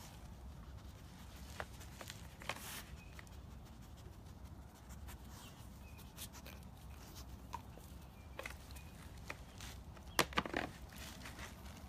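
A puppy moving about on a hard floor: sparse light clicks and taps of its paws, with a short cluster of louder knocks about ten seconds in.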